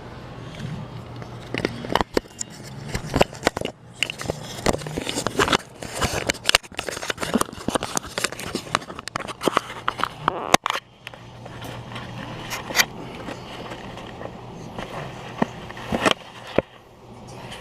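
Handling noise: irregular clicks, taps and scrapes of small objects being picked up and set down on a workbench, with a steady low hum underneath.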